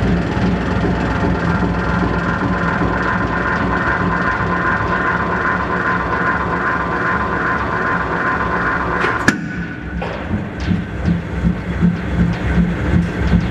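Hydraulic press pump and motor running under load with a steady whine as the ram flattens a stainless steel bolt. A single sharp crack comes about nine seconds in, after which the sound drops and turns to a rhythmic pulsing.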